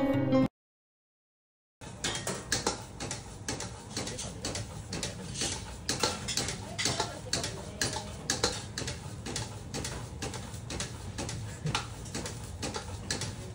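Metal ladle clattering and scraping rapidly against a wok as fried rice is stir-fried over a high gas flame, over a steady low burner rumble. The clatter starts about two seconds in, after a brief silence, and runs as irregular quick strikes, several a second.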